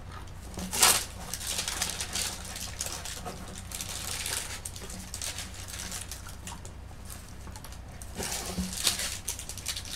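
Light clicks, knocks and scraping as clay-modelling tools are handled on a wooden worktable, with a sharper knock about a second in and another near the end, over a steady low electrical hum.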